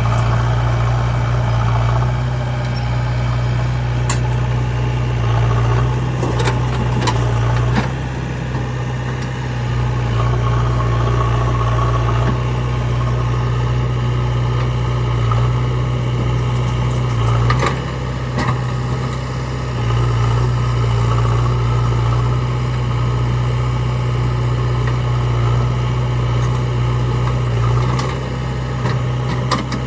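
Diesel engine of a JCB 3DX backhoe loader running steadily while loading mud, its level dipping briefly now and then, with a few short knocks.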